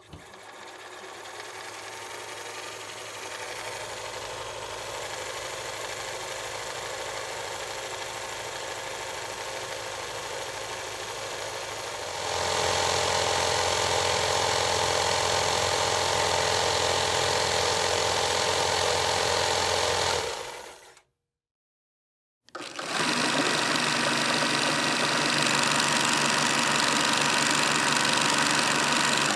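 A steady motor-like running sound that swells over the first few seconds and steps up louder about twelve seconds in. It cuts off near the twenty-one-second mark, and after a short silence another steady mechanical running sound starts up.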